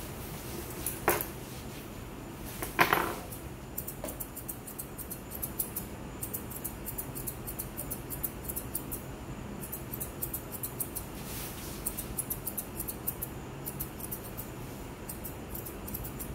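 Grooming scissors snipping through a Pomeranian's coat in quick runs of short, crisp cuts. Two louder knocks come about one and three seconds in.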